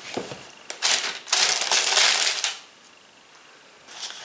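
Paper packaging rustling and crinkling as items are moved around in a cardboard box, with a few light knocks. It goes quiet for about a second near the end.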